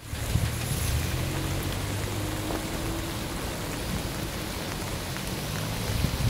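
Steady hiss of rain and runoff water on wet ground, with a low rumble underneath.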